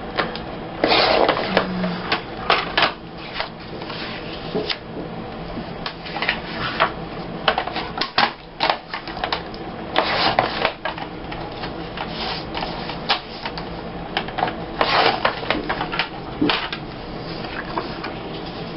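Photo paper being trimmed and handled: irregular snips and clicks with a few short rustles of paper.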